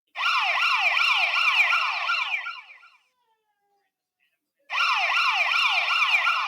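Electronic emergency-vehicle siren in a fast yelp, its pitch sweeping over and over about three times a second. It sounds in two bursts of about three seconds each, with a pause of under two seconds between them.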